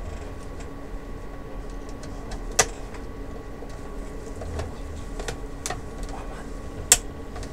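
A few sharp metal clicks, with a long screwdriver tapping against a steel monitor chassis; the loudest comes near the end. A steady electrical hum runs underneath.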